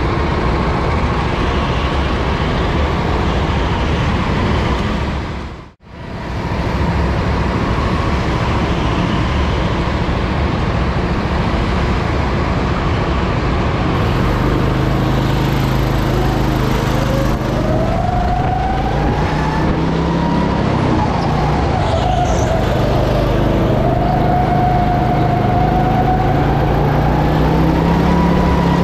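Go-kart engine running at racing speed, heard from the driver's seat, with its pitch rising and falling as the kart accelerates and slows through the corners. The sound cuts out briefly about six seconds in.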